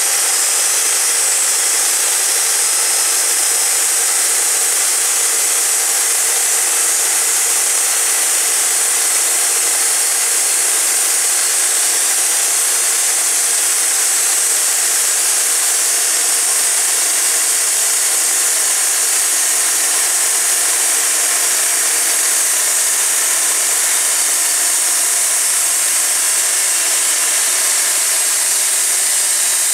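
Wood-Mizer LT40 portable band sawmill cutting through a log: its band blade runs through the wood with the engine running under load as the saw head feeds along the log. The sound is a steady, loud, hissing saw noise throughout.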